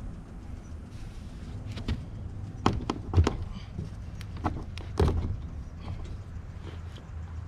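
Boat's bow rail being worked and pulled at to free it from the deck, giving a few sharp knocks and clanks over a steady low hum. The rail is not coming off easily.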